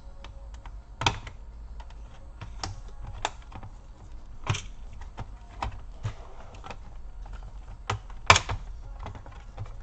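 Plastic snap clips of a Toshiba Satellite C855 laptop's case clicking loose as the cover is pushed and pried off: irregular sharp clicks, a dozen or so, the loudest about eight seconds in.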